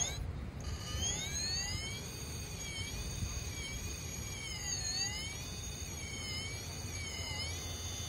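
Electric motor and gear train of an RC rock crawler whining under throttle as it climbs slowly over rock. The whine rises about a second in, then dips and recovers in pitch several times as the throttle is worked, over a steady low rumble.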